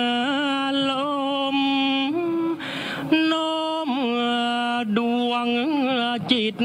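Thai royal barge chant (Kap He Ruea): a single voice sings long, drawn-out held notes with wavering, sliding ornaments, pausing briefly about two and a half seconds in and again near the end.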